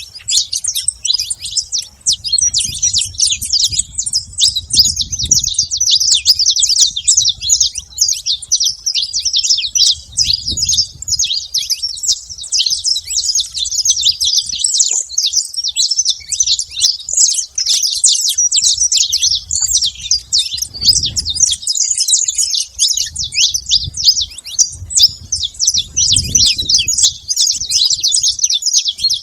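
Saffron finch chirping and calling in a dense, unbroken stream of short, high notes. A low rumble comes and goes underneath.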